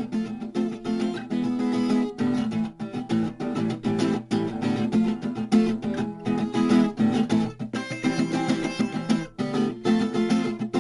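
Guitar music with a quick, rhythmic pattern of plucked notes.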